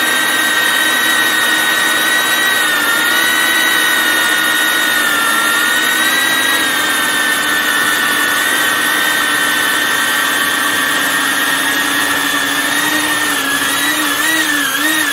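A drone's motors and propellers in flight: a steady high whine over a hiss. Near the end the pitch wavers up and down several times as the throttle changes.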